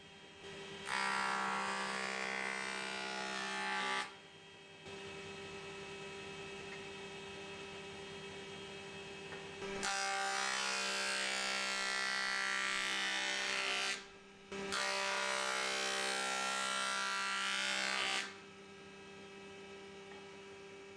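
Jointer-planer running, with three passes of a wood strip over the spinning cutterhead, each pass a loud rushing cut lasting a few seconds: near the start, around the middle, and again just after. Between and after the passes the machine hums steadily while it idles. The passes are flattening the strips' faces so the glue joints sit flush.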